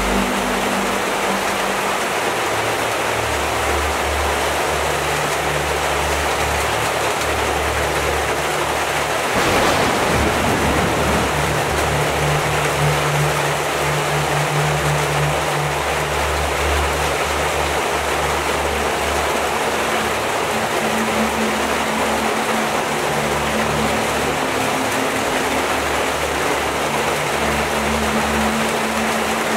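Heavy rain falling steadily, a dense even hiss, with soft low sustained music notes underneath that change every few seconds. The rain swells louder briefly about ten seconds in.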